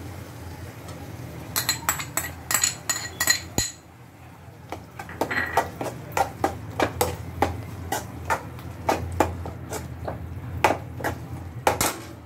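A metal spoon knocking and scraping against a cooking pan. There is a quick run of ringing taps about one and a half seconds in, then irregular knocks every half second or so, over a steady low hum.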